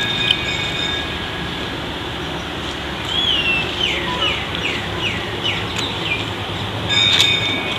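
A bird calling: a run of short whistled notes, each falling in pitch, about two a second from about three seconds in, with a brief louder call near the end. Under it runs a steady rushing background noise.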